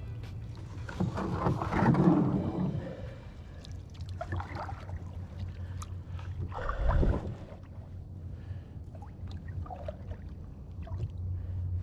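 Irregular scraping, rustling and knocks of a plastic folding kayak being handled and assembled, with a heavier thump about seven seconds in.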